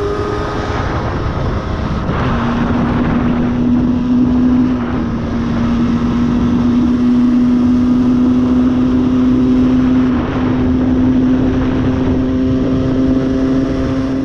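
A tuned 50cc Aprilia moped's two-stroke engine, fitted with an aftermarket exhaust, pulling hard at high revs while riding, under heavy wind noise on the microphone. Its note drops in pitch about two seconds in, then holds a steady, high, buzzing tone, with a brief dip about ten seconds in.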